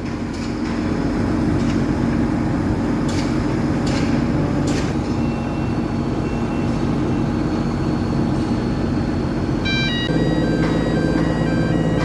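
Construction machinery engine running steadily, with a few sharp metallic knocks a few seconds in. Near the end a tinkling melody of short repeated notes comes in over it.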